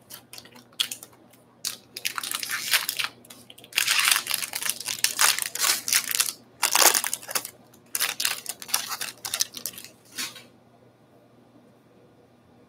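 Baseball card pack wrappers crinkling and tearing as packs are ripped open and the wrappers crumpled, in irregular rustling bursts that stop a couple of seconds before the end.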